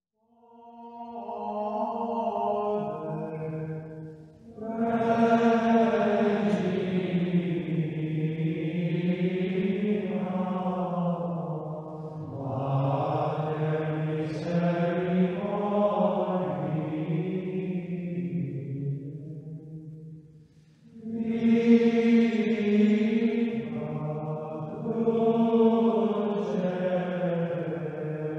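Plainchant: a single melody line sung by voices in long, slowly moving phrases. It fades in at the start and pauses briefly twice, about 4 s and 20 s in.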